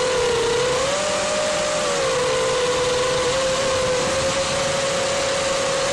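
FPV quadcopter's electric motors and propellers whining steadily, heard from the onboard camera, with the pitch dipping and rising slightly as the throttle changes, over a rush of propeller wash and air.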